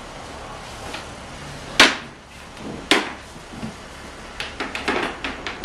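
Aluminium-edged floorboard being fitted into an inflatable boat's floor, knocking against the neighbouring boards: two sharp knocks about a second apart, then a quick run of lighter clicks and taps near the end.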